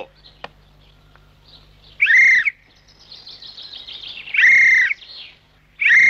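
Three loud, high whistled calls of about half a second each, about two seconds apart, over faint high chirping.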